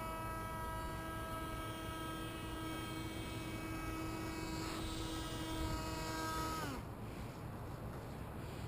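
The Oxy's motor running with a steady hum, which drops in pitch and cuts out about seven seconds in as the motor is shut off.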